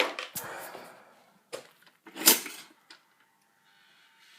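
A new pop-up toaster being handled and switched on: a few clicks and clatters, then a faint steady hum from about three seconds in, which sounds like it works.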